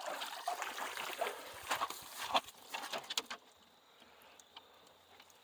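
Wet dog being shifted and held down: scattered scuffling, taps and light water splashing for about three seconds, then it goes quiet.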